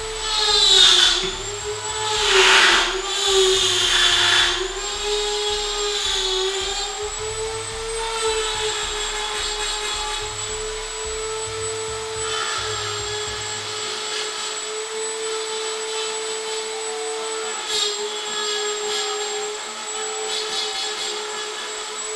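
Handheld rotary tool running at high speed, its burr grinding into a piece of antler to rough out the shape. There are louder grinding passes in the first few seconds, the whine dropping slightly in pitch each time the burr bites, then lighter steady cutting.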